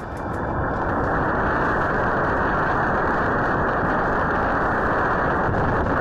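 Loud tornado winds heard through a doorbell camera's microphone: a dense, steady rushing noise that swells over the first second and then holds, dull and muffled in tone.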